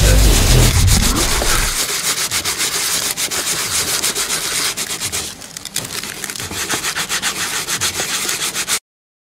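Hand-sanding Rage Gold lightweight body filler (Bondo) over a fiberglass panel with a sheet of sandpaper: fast back-and-forth rasping strokes, with a short let-up a little past the middle. It cuts off abruptly just before the end.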